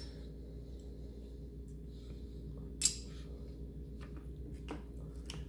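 Bottle caps clicking as they are handled and set down in rows: one sharp click about three seconds in and a few faint clicks near the end, over a steady low hum.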